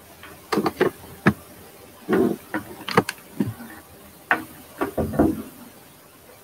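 Irregular clicks and knocks from a laptop being operated, a dozen or so sharp taps and short thuds spread over about five seconds.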